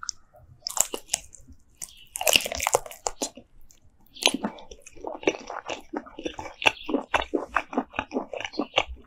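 Close-miked chewing of giant land snail meat: scattered bites and mouth sounds, then a quick string of clicks and smacks, several a second, from about halfway in.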